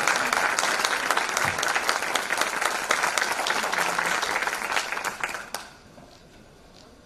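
Audience applauding with dense clapping that fades out after about five and a half seconds.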